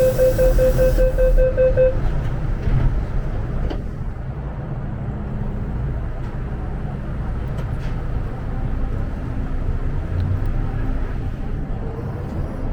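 MTR M-train door-closing warning: rapid beeping at one pitch for about two seconds, with a short burst of hiss at the start. Then a steady low rumble of the train running, with occasional faint clicks.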